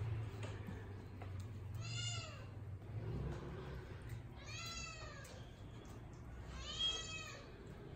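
A cat meowing three times, about two seconds apart. Each meow rises and then falls in pitch, and the last is the loudest.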